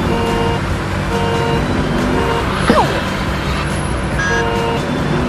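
Cartoon vehicle engine running steadily, with short tones recurring about once a second over it. About two and a half seconds in comes a brief falling glide, the loudest moment.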